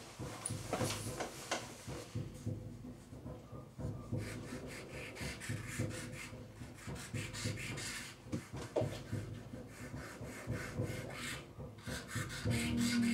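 Pen nib scratching and rubbing over the paper of a drawing board in irregular strokes while an ink sketch is started. A low steady tone comes in near the end.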